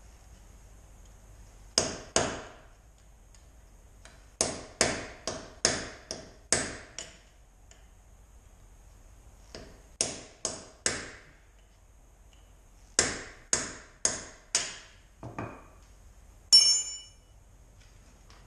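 Steel hammer blows on a tool held against a car's locking wheel nut, struck in quick runs of a few sharp hits with pauses between, to work the nut off because its key no longer fits. Near the end comes one louder metallic clang that rings briefly.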